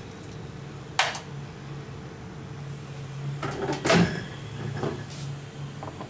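Kitchen handling noises over a low steady hum: a sharp click about a second in, then a few knocks ending in a heavier knock around four seconds.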